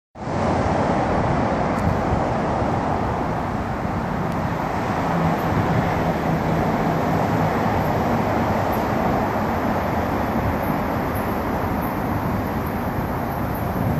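Steady road-traffic noise, with the low rumble of a diesel locomotive approaching from a distance.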